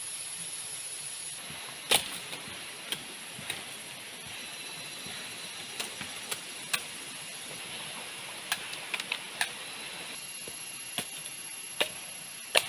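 Steady, high-pitched rainforest insect drone with irregular sharp clicks and taps over it, about fifteen in all. The loudest click comes about two seconds in, and another near the end.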